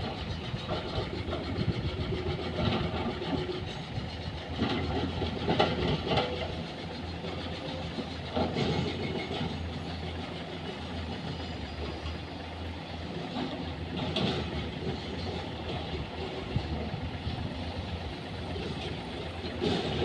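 Heavy diesel construction machinery running steadily, with occasional clanks and knocks.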